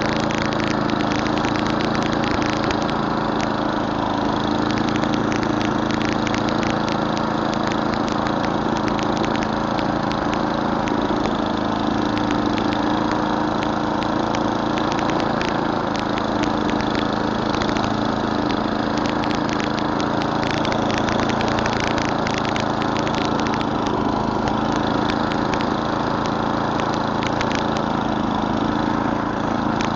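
Murray Select snowblower's 11 hp Tecumseh single-cylinder engine running steadily while clearing snow, with a constant scatter of small ticks over the engine note.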